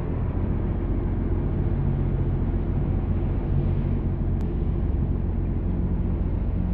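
Mercedes-Benz intercity coach's diesel engine idling steadily, a deep even hum.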